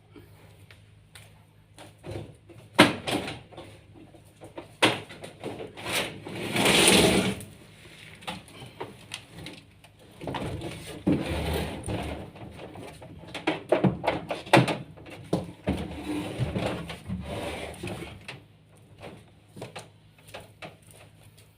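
Irregular knocks, clicks and scraping of parts being handled and fitted during a washing machine repair, with a longer scraping noise about seven seconds in.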